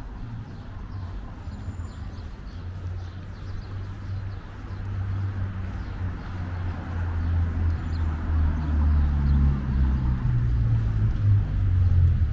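Street traffic: the low rumble of a motor vehicle's engine, growing louder over the last few seconds as it comes closer.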